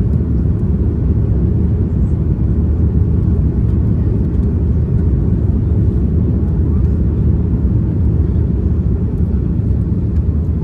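Steady low rumble of jet airliner cabin noise in flight: engine and airflow noise heard inside the cabin from a window seat over the wing.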